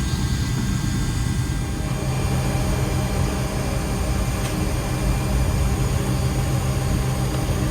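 Steady hum and rush of cockpit noise in a Boeing 727-200 on the ground with its three engines running at low power before takeoff, with a few faint steady whines.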